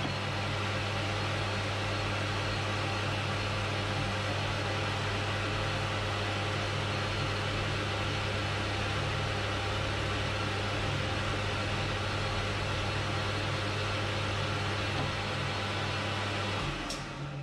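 Metal lathe running steadily, taking a finishing cut on a brass bush: a constant motor hum under an even hiss. It stops fairly abruptly near the end.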